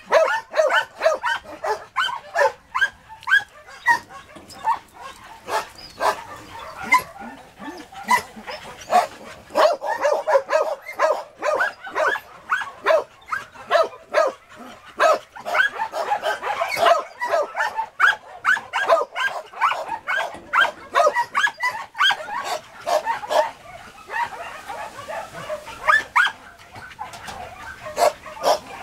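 German shepherd-type dog barking and yelping excitedly in a rapid string of short calls, several a second, without let-up.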